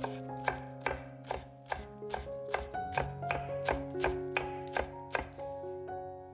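Chef's knife chopping flat-leaf parsley on a wooden cutting board: an even rhythm of about a dozen sharp strokes, roughly two and a half a second, stopping about five seconds in. Soft background music plays underneath.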